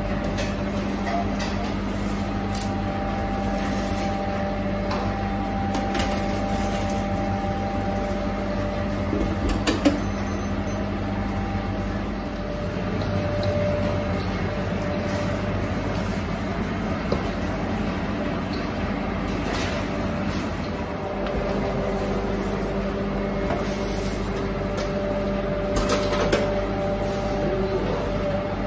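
Steady hum of bakery machinery running in a commercial kitchen, with a few sharp knocks and clatters of trays and utensils.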